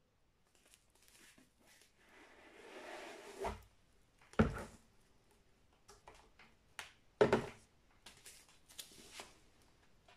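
Handling of a shrink-wrapped vinyl LP box set: the plastic wrap crinkles and rustles, with a few dull knocks as the box and record sleeves are moved, the loudest about four and a half and seven seconds in.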